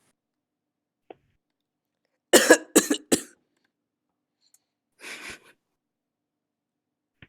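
Deliberate fake coughing: a quick run of three harsh coughs about two seconds in, then one fainter cough about two seconds later.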